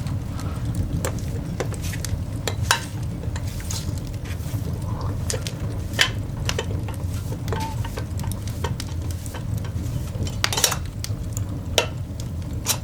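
Coal fire burning in a cast iron dog grate: irregular sharp pops and crackles over a steady low rumble.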